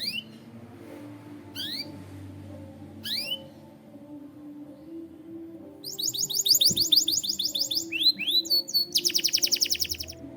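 Canary singing over soft background music: single rising chirps about every second and a half, then from about six seconds in, fast high trills, the loudest part, broken briefly by a few rising whistles.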